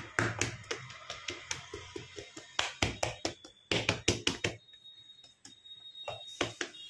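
Hands patting and pressing a sheet of puff pastry dough flat on a floured stone table: a quick run of soft slaps and taps that thins out about two-thirds of the way through, with a few more taps near the end.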